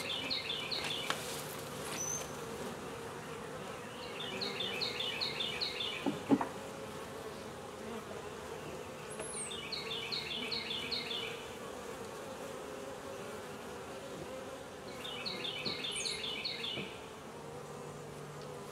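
Honey bees buzzing around an open nuc hive, a steady hum. A short, high run of repeated notes comes four times, about every five and a half seconds, and there is a single sharp tap about six seconds in.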